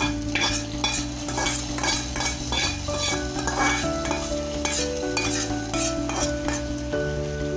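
A metal spoon scraping a hot ghee tempering of pepper, cumin, green chilli and curry leaves out of a metal kadai into cooked rava pongal, with repeated scrapes against the pan. The hot ghee sizzles as it lands on the wet pongal.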